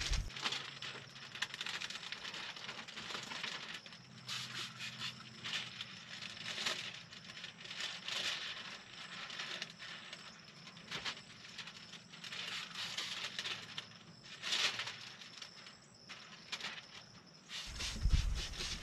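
Window tint film being worked wet onto a truck's side window: irregular hissing swishes of film, water and tool rubbing on the glass.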